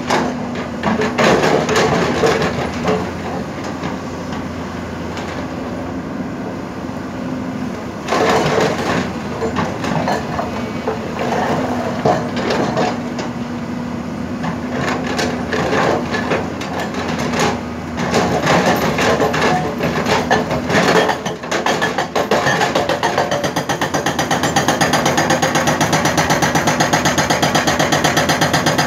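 Hydraulic rock breaker on a Hyundai crawler excavator hammering rock, over the steady hum of the excavator's engine. Irregular knocks and stone clatter at first, settling about two-thirds of the way through into a rapid, even hammering.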